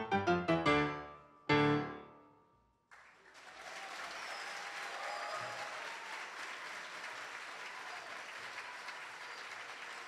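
Grand piano playing the last quick notes of a piece, then a final chord struck about a second and a half in that rings and dies away. After a short gap, an audience applauds steadily.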